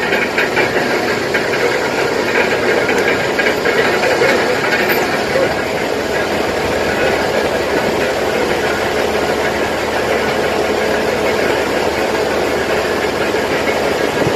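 Deck-mounted diesel engine on a salvage barge running steadily at close range, a constant loud mechanical noise.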